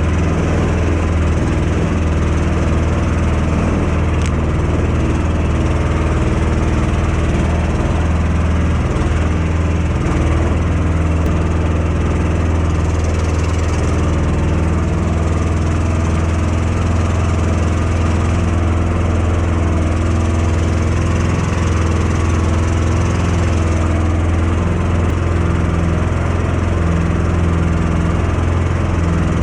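Karakat all-terrain vehicle's engine running steadily under way, a constant loud low drone.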